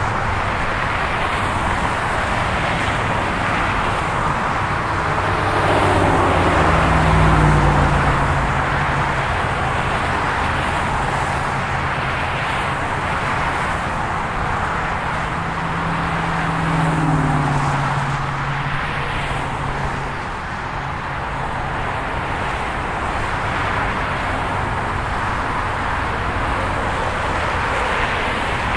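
Steady rush of freeway traffic passing close by on southbound Interstate 15, tyre and road noise without a break. Two louder vehicles go by about 7 seconds and 17 seconds in, each with a low engine note that drops in pitch as it passes.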